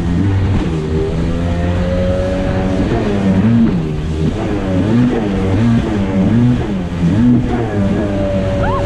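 Sea-Doo GTI 720's two-stroke engine running at speed, its pitch rising and falling over and over, with water rushing and spraying against the hull.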